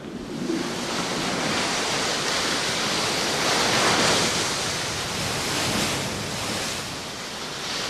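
Heavy ocean surf breaking against rocks: a continuous rush of churning water that swells to its loudest about four seconds in, then eases a little.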